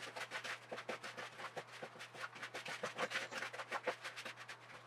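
A fork scraping and clicking against a plastic mixing bowl in quick, irregular strokes as butter and sugars are mashed and creamed together with the back of the fork.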